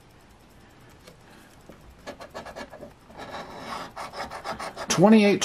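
Coin scratching the coating off a scratch-off lottery ticket on a wooden table, in quick repeated strokes that start about two seconds in and grow louder.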